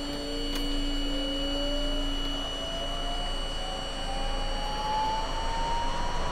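Electric whine of a subway train's motors rising slowly and steadily in pitch, with a steady high tone alongside.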